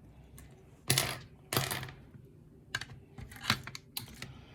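Sharp metallic clicks and clacks as the picked padlock is being taken apart: two loud clicks about a second in, then a scatter of lighter clicks.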